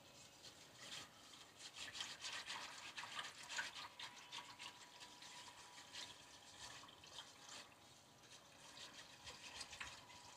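Balloon whisk briskly stirring cornflour and sugar into cold water in a nonstick pan: faint, quick swishing of the liquid with light taps of the whisk against the pan.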